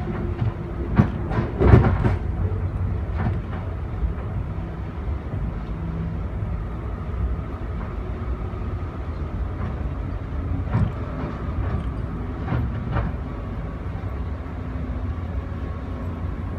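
Amfleet passenger coach rolling along the track with a steady low rumble. Sharp knocks come from the wheels on the rails, loudest about two seconds in, with more around eleven and thirteen seconds.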